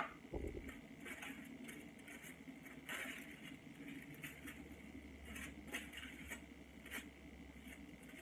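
Faint, scattered crinkles and light clicks of aluminium highlighting foil being handled, folded and pressed against the hair. It opens with a sharp click and a soft thump.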